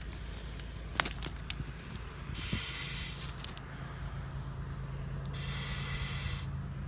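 Firefighter breathing through an SCBA demand regulator: a hiss of inhalation about a second long, about every three seconds, over a steady low rumble. A few sharp clicks and rattles of gear come about a second in.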